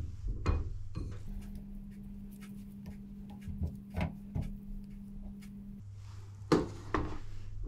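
Quiet handling of raw bacon and chipolata sausages on a ceramic plate: scattered soft clicks and taps as the meat is wrapped and set down. Under it runs a steady low hum that steps up in pitch about a second in and drops back near the end.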